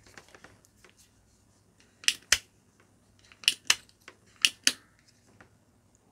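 Sharp plastic clicks in three pairs, each pair a fraction of a second apart and the pairs about a second apart: the spring-loaded plunger of a manual desoldering iron being cocked and snapped back.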